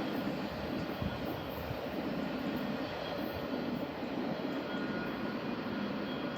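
Double-stack container freight train rolling past: a steady rumble of wheels on rail.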